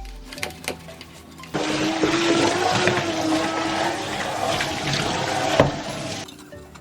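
Water running hard from a kitchen tap into the sink for about four and a half seconds. It starts abruptly about a second and a half in and is shut off near the end.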